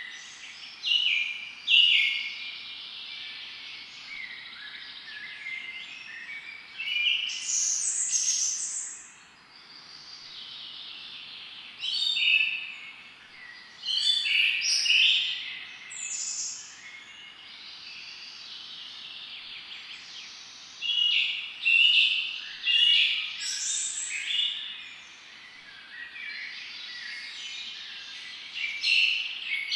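Several songbirds singing and calling over one another in a continuous chorus of high chirps and phrases, with louder songs standing out every few seconds.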